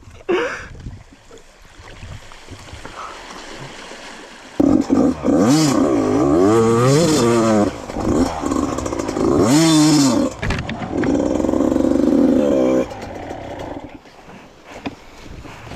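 85cc two-stroke dirt bike engine revving. About four and a half seconds in it comes in loud and swings up and down in pitch twice, then holds a steady higher note before cutting off suddenly about 13 seconds in.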